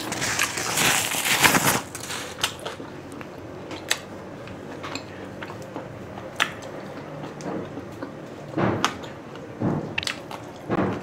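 Close-up eating sounds: a man chewing a mouthful of grilled skewered meat, loudest and wettest in the first two seconds. Sharp single clicks and knocks follow, with a few short bursts of chewing near the end.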